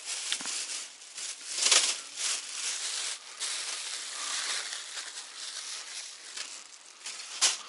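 Dense rustling, rattling noise with many short crackles, a louder one about two seconds in and a sharp one near the end.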